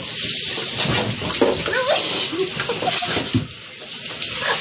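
Water spraying from a handheld shower head onto a wet dog in a bathtub: a steady hiss of spray splashing off the fur and tub, easing briefly a little after three seconds.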